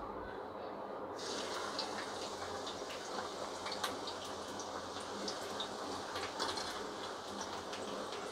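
Sliced onions hit hot oil in a kadai about a second in and sizzle steadily with frequent small crackles, frying into crisp beresta.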